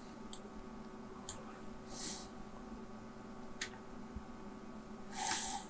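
Quiet room tone with a steady low hum, a few faint computer-mouse clicks and two short breaths, the louder one near the end.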